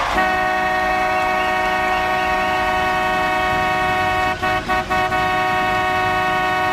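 The Salmon Arm Silverbacks' 2014 goal horn, an arena air horn, blows one loud, long chord of several tones. It stutters with a few brief breaks about four and a half seconds in.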